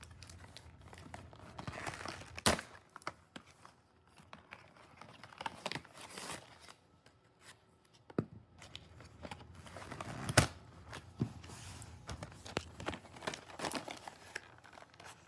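Toy packaging being torn open and crinkled by hand, with irregular crackles and two sharper snaps, one a couple of seconds in and one about two-thirds of the way through.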